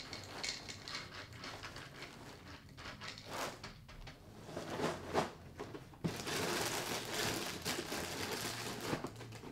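Dry cereal poured from a box rattling into a bowl, in scattered clicks. About six seconds in, the box's plastic inner bag starts to crinkle and rustle steadily as it is folded shut.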